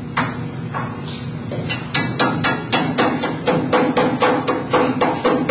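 Rubber mallet striking sheet metal clamped in a hand brake, folding the edge over by hand. Two separate blows at the start, then from about two seconds in a quick, regular run of about four blows a second.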